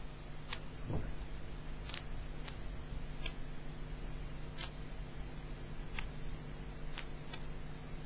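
About eight sharp, faint clicks at irregular intervals over a steady low hum, with a soft low thump about a second in.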